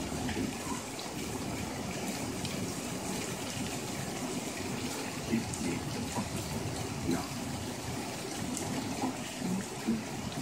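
Steady rain falling, with a few brief louder splashes.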